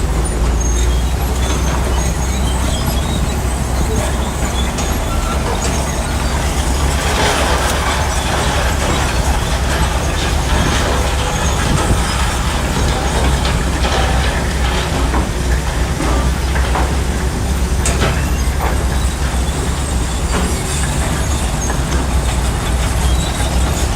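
Bulldozer diesel engine running steadily under load, a deep rumble, with scattered metallic clanks from the crawler tracks.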